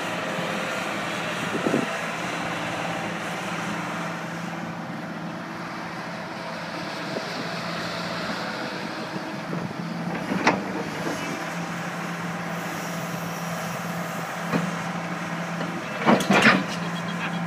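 1995 Case 9040B excavator's diesel engine running at a steady pitch, with a few sharp metal knocks about halfway through and a cluster of louder clanks near the end.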